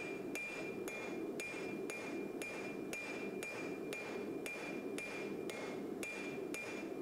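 Hand hammer striking a red-hot knife blade on a steel anvil, about two even blows a second, each with a short high ring. The blade, forge-welded from mattress coil-spring steel, is being forged toward its final shape.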